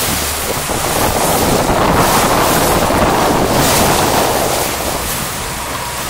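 Wind buffeting the microphone over water rushing and splashing past the hulls of paddled six-person outrigger canoes.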